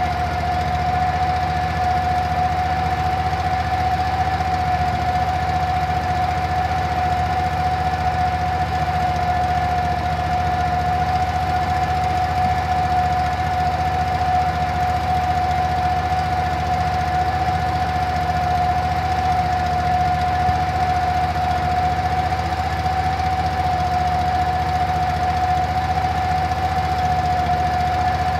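A motor running steadily: a constant low hum with a steady whine over it, never changing speed.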